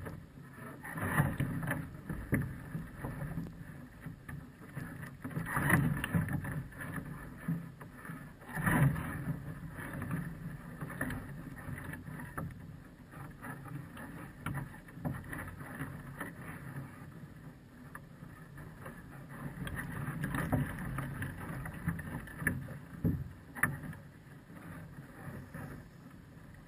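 Small waves lapping and slapping against a floating platform at the waterline, in uneven sloshes with several louder slaps.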